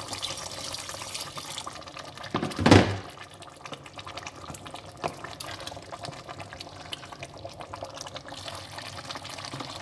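Water being poured into a pot of egusi soup, a steady splashing, with one brief, much louder sound about two and a half seconds in.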